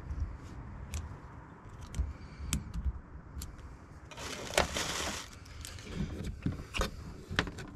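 Small clicks and knocks of metal parts and wiring being handled on a wooden workbench, with a rustle lasting about a second around four seconds in.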